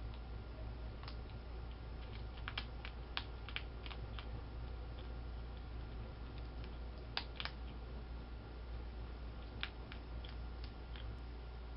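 A skunk crunching dry cat food kibble from a bowl: irregular sharp crunches that come in small clusters a few seconds apart, over a steady low hum.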